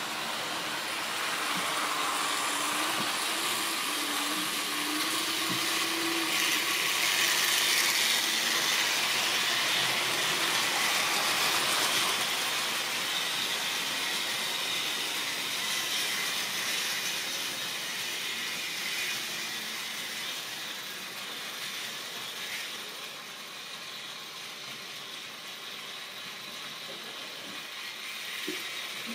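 Model railway locomotive running on sectional track, its small electric motor and wheels making a steady whirring rumble. It grows louder to a peak a few seconds in, then fades as the train runs away, with one sharp click at the very end.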